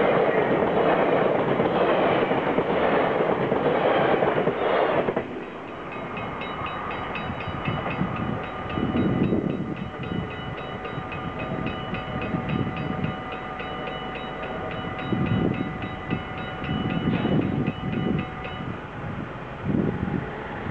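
A double-deck electric passenger train (NS VIRM) passes at speed with loud rolling wheel noise, which cuts off about five seconds in. The level-crossing warning bells then ring on steadily with a rapid striking, from a mix of mechanical striker bells and one electronic bell, and stop shortly before the end.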